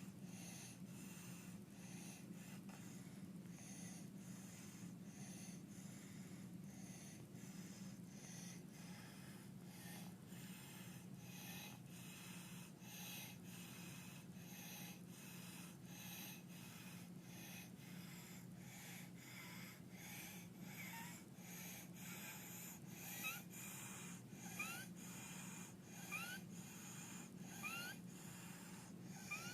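Infant's rapid, regular noisy breathing with stridor, the harsh breath sound of a narrowed larynx (laryngeal dyspnea). In the last third, short rising high-pitched squeaks come about every second and a half.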